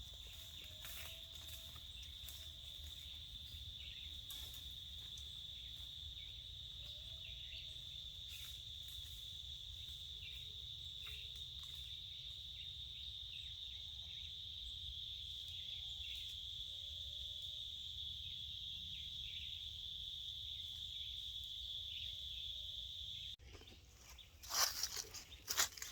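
Steady high-pitched insect trill, faint, with occasional soft chirps underneath; it cuts off suddenly near the end, followed by rustling and crunching.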